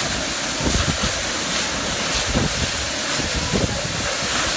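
Steady rushing of a waterfall falling close by onto rocks, with a few brief low buffets of wind on the microphone.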